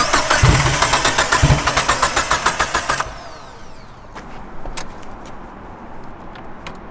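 Mitsubishi Lancer Evolution VIII's turbocharged 4G63 engine being cranked over on the starter in a fast, even rhythm for about three seconds without catching, with two heavy low thumps about half a second and a second and a half in. The no-start is the car's recurring fault, which the owners put down to the fuel system.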